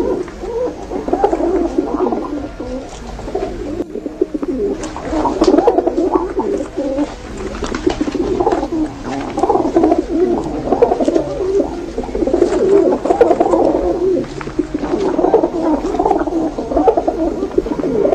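Many domestic pigeons cooing at once, their coos overlapping without a break, with a few short clicks about five seconds in.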